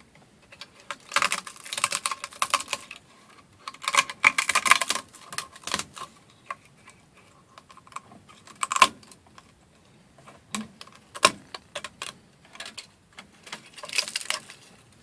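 Hard PLA plastic 3D print being handled: bursts of rapid small clicks and rattles, with a few single sharp clicks in between.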